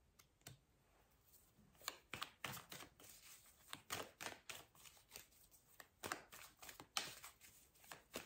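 Tarot cards being shuffled by hand: a quiet, irregular run of quick papery clicks and flicks that starts about two seconds in.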